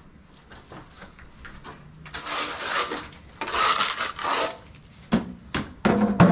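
Steel trowel scraping wet stucco patching mix on a hawk: two long rasping scrapes, followed by a few sharp knocks near the end.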